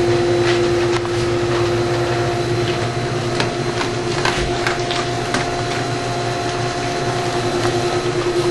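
A steady machine hum with a strong single tone runs throughout, with a few light clicks in the middle as a German shepherd eats at its food bowl.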